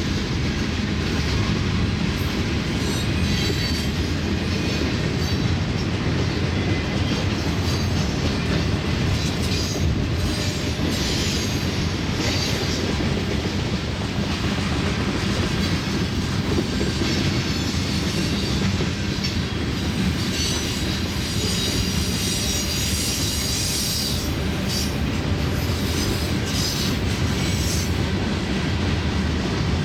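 Freight train cars of a manifest train rolling past with a steady low rumble and wheels clacking over the rail joints. High wheel squeal comes in spells, strongest around ten seconds in and again for several seconds past the twenty-second mark.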